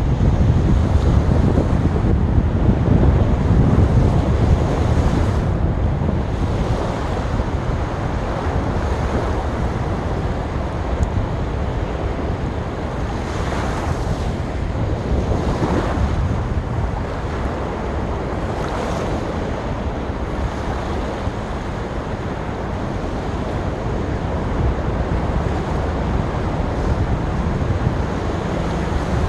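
Sea waves washing onto the beach in a continuous rush, with swells breaking about halfway through, and wind buffeting the microphone with a low rumble.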